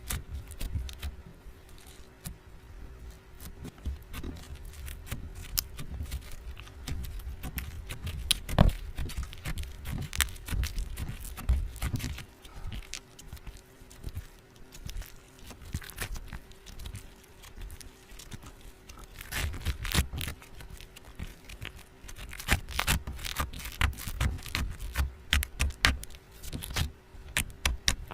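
Close-up handling sounds: irregular sharp clicks and taps mixed with scraping, coming in quicker clusters later on.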